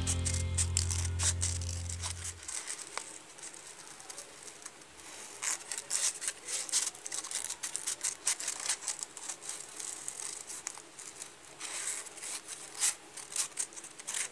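Scissors snipping through a strip of paper in many short, irregular cuts. Background music fades out over the first two seconds or so.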